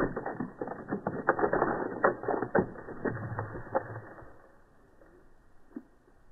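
A dog's claws scratching and scraping on tree bark as it scrambles up the trunk: a rapid, uneven run of clicks and scrapes that dies away about four seconds in.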